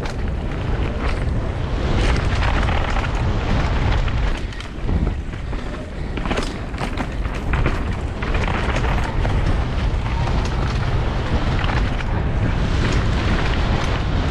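Wind buffeting an action camera's microphone during a downhill mountain-bike run, a heavy steady rumble with many short knocks and rattles from the bike over rough ground, easing briefly about five seconds in.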